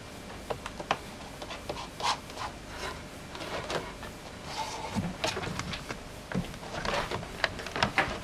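Wooden objects handled and shifted on a wooden workbench: irregular small knocks and clicks with some rubbing and scraping.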